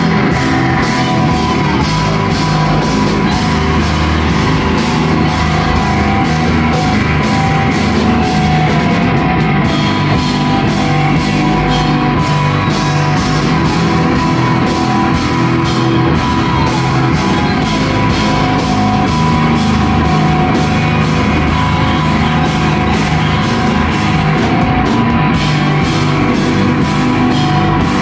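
Loud live rock from a band with two electric guitars and a drum kit, the cymbals struck on a fast steady beat.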